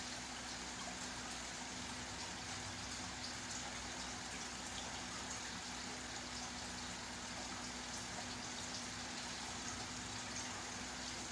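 Steady hiss with a faint low hum underneath and a few faint ticks.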